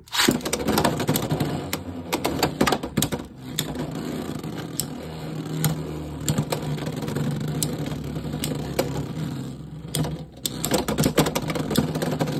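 Two Beyblade X spinning tops, Helm Knight and Dronzer, are launched into a plastic stadium and spin with a steady whir. Their clashes against each other and the stadium walls make rapid, irregular sharp clacks.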